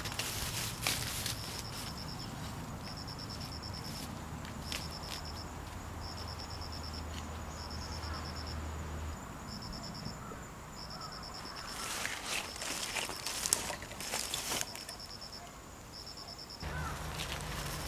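An insect calling in a long series of short, high, buzzy trills, about one a second. Footsteps and rustling through grass come near the start and again, loudest, about twelve to fifteen seconds in.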